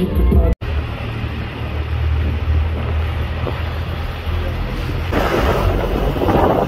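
Vehicle driving on a mountain road, a steady low engine and road rumble heard from inside. About five seconds in it gives way to louder wind buffeting the microphone.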